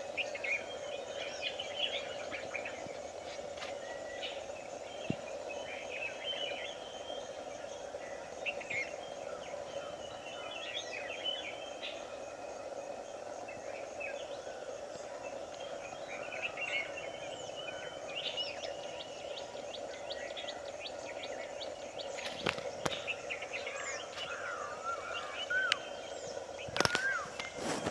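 Several birds chirping and calling in short trills and whistles over a steady background hum, with a few sharp clicks near the end.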